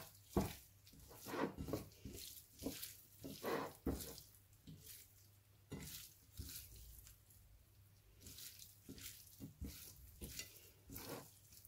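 Faint wet squishing and patting of a hand tossing cubes of raw lamb's liver in seasoning on a plate, in short irregular bursts.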